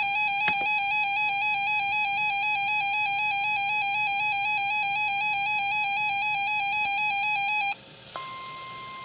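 Emergency Alert System attention signal: a loud electronic tone warbling rapidly between two close pitches, with a click about half a second in. It cuts off suddenly near the end, and after a brief pause a quieter steady higher tone starts, over a faint hiss.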